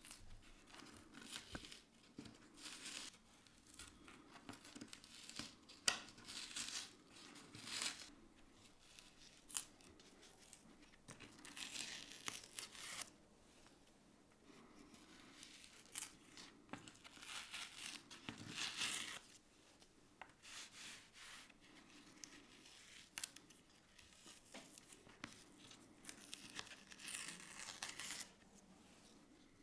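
A thin metal spatula scraping and prising between a flood-damaged watercolor and its fibrous backing board, with soft tearing of paper fibres as the failed adhesive lets the layers separate. The scrapes come in irregular strokes of a second or two, with a few sharp clicks.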